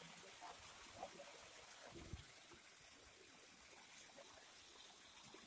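Faint water pouring from stone spouts into a pool, an even soft trickle, with one soft low thump about two seconds in.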